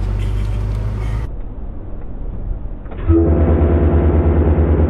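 Vehicle engine running: first a steady low hum, then, after a cut, a louder engine idling with an even pulsing rumble that sets in about three seconds in.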